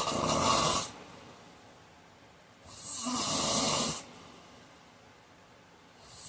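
A man snoring in his sleep: loud, noisy snores about a second long each, one ending about a second in and another about three seconds later, with the next starting near the end.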